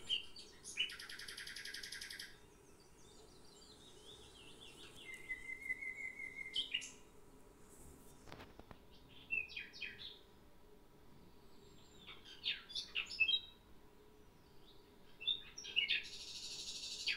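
A small songbird chirping and singing in short phrases: a rapid buzzy trill about a second in, a run of quick repeated notes a few seconds later, then sharp chirps and trills with pauses between.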